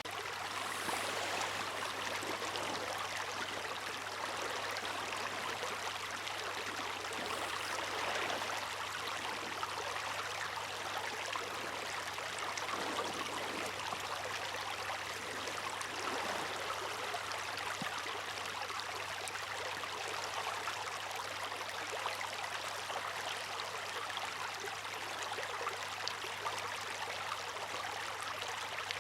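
Water rushing and splashing steadily, swelling a little now and then, with no single crash standing out.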